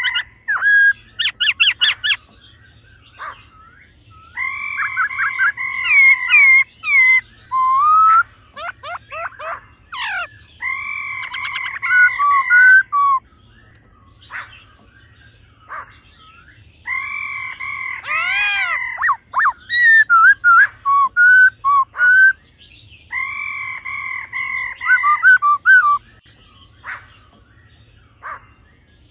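Black-throated laughingthrush singing in loud bouts of whistled phrases a few seconds long with short gaps, mixing held steady notes, quick up-and-down whistles and a fast rattle near the start.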